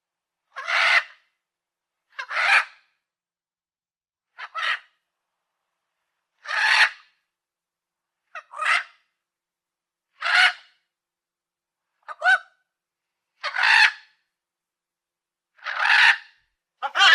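A parrot giving a series of harsh, screechy squawks, each about half a second long, roughly every two seconds, with clean silence between calls.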